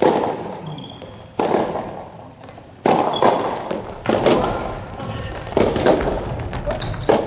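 Soft tennis rally: rackets striking the rubber ball in turn, a sharp pop about every second and a half, each echoing in a large indoor hall.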